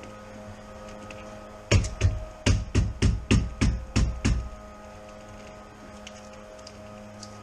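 A run of about nine sharp knocks, roughly three a second, from work on the windshield from inside the vehicle during the old glass's cutout, starting about two seconds in and stopping a little past the middle, over a steady electrical hum.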